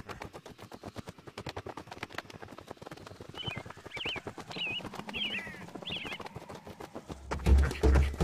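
Cartoon sound effects: a fast, even patter of short taps, about ten a second, with a few short squeaky chirps in the middle. Music with a heavy bass beat comes in near the end.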